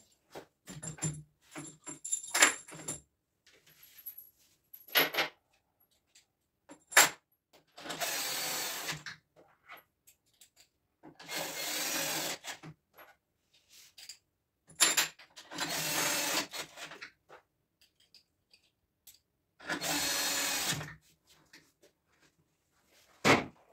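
Cordless screwdriver running in four short runs of about a second each, driving screws while an anti-cat window screen is fitted, with sharp clicks and knocks of the screen and plastic window frame being handled between the runs.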